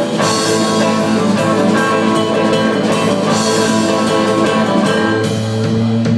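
Live rock band playing without vocals: electric guitar, bass guitar and drum kit at a steady beat. About five seconds in, a cymbal crashes and a low note rings on.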